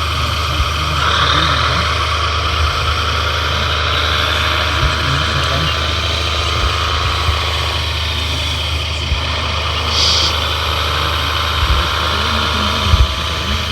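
Radio-controlled model trucks and construction machines running: a steady low engine-like hum under a whine of electric motors that wavers up and down in pitch, with a few knocks near the end.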